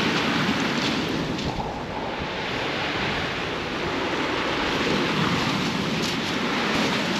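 Waves breaking and washing up a shingle beach in a steady rush of surf, with wind buffeting the microphone.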